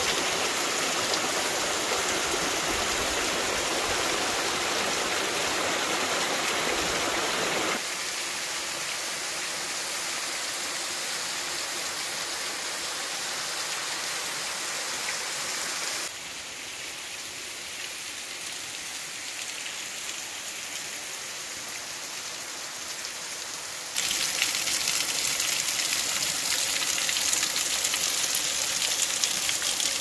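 Waterfall pouring: a steady rush of falling water. The rush changes abruptly in loudness and tone about 8, 16 and 24 seconds in, and is loudest and brightest near the end.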